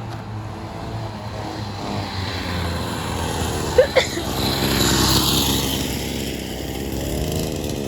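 Small mini bike engine running as the bike rides past, growing louder to a peak past the middle and then easing off as its pitch drops near the end. A brief high-pitched sound cuts in about four seconds in.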